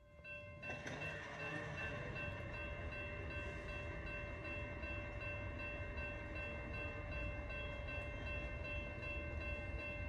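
Locomotive air horn from an approaching freight train, held in one long steady chord that starts about half a second in. A low rumble runs underneath.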